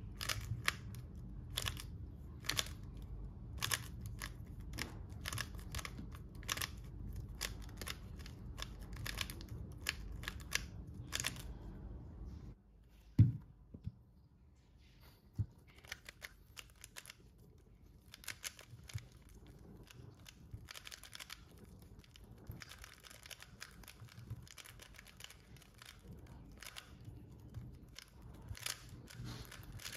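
Plastic 3x3 speed cube being turned by hand: quick clicking layer turns, broken about thirteen seconds in by a single loud knock, then rapid turning again.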